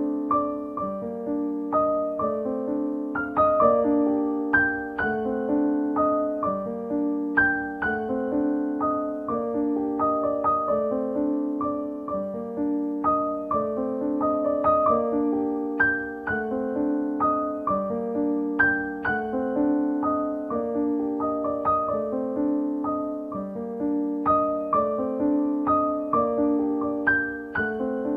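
Background piano music: a gentle, repeating pattern of notes that runs on without a break.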